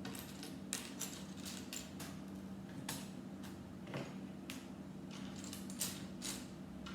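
Small plastic Lego pieces clicking and clattering irregularly as a hand sifts through them, over a steady low hum.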